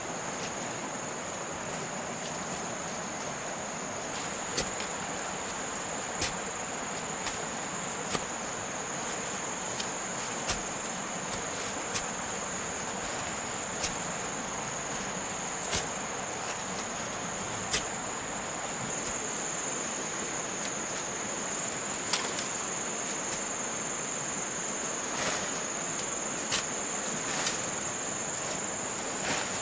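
Insects droning in one steady high tone, over an even background hiss. Sharp knocks come about every two seconds and are the loudest sounds.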